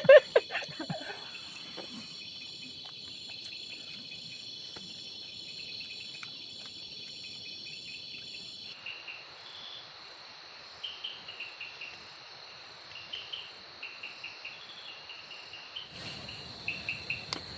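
Chorus of crickets and other insects: a steady, high-pitched trilling. About nine seconds in, the sound changes abruptly and short chirps start repeating in quick groups over the trill.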